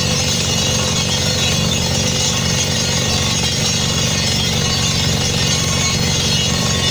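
Truck-mounted borehole drilling rig air-drilling: the rig's engine and compressor run steadily under a constant hiss of compressed air blasting dust and spray out of the hole, with a rapid, even hammering pulse underneath from the drill working in the hole.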